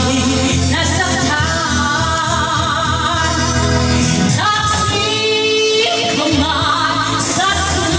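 A woman singing karaoke into a handheld microphone over a backing track with a steady bass line.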